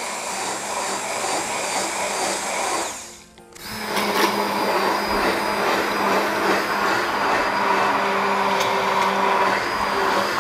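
Electric immersion blender running, puréeing cooked chickpeas in their cooking water. About three seconds in it stops for a moment, then starts up again and runs steadily.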